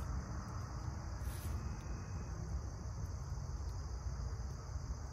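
Steady chorus of crickets and other insects, with a low rumble underneath. A brief hiss comes about a second and a half in.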